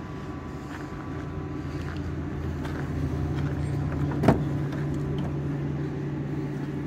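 Steady low mechanical hum with one sharp click a bit over four seconds in.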